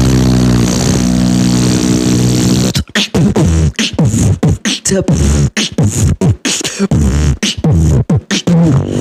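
Beatboxer imitating an electric drill with the voice: a steady, low, buzzing drone for about three seconds, then switching to rapid stuttering start-stop bursts.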